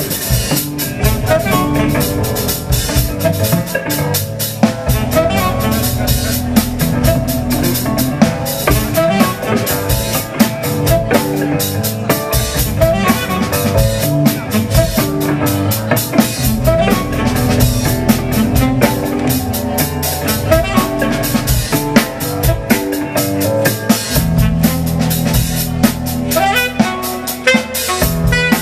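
A live jazz-funk instrumental band playing: a busy drum kit with frequent snare and rim hits over a hollow-body electric guitar and held lower notes.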